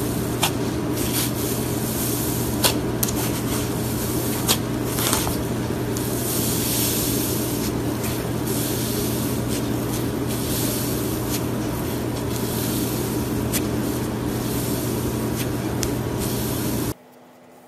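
Fluffy, snow-textured slime being squeezed and stretched by hand: a dense crackling hiss with a few sharper pops, most of them in the first five seconds, over a steady low hum. It cuts off suddenly near the end.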